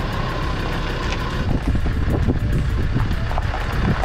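A 4WD's engine running as it reverses slowly with a boat trailer in tow, a steady low rumble.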